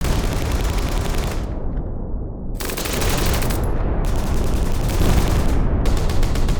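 Battle sound effect: bursts of rapid automatic gunfire, four runs with a short lull about two seconds in, over a continuous low rumble.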